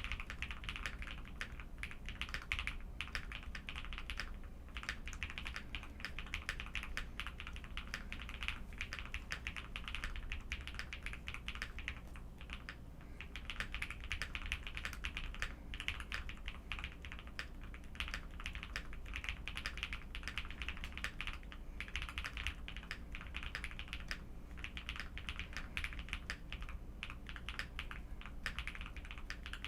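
Continuous typing on a Jelly Epoch mechanical keyboard fitted with Durock POM linear switches: a dense, unbroken stream of keystrokes.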